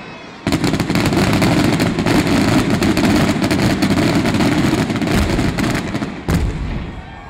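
Fireworks going off in a rapid, dense run of bangs and crackling, starting about half a second in and lasting about five seconds, with one last bang near the end before it stops.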